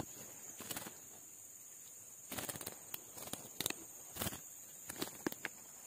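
Irregular rustling and crackling, like dry leaves and twigs being stepped on or brushed, in a few scattered bursts that are densest in the middle. A steady high insect drone runs underneath.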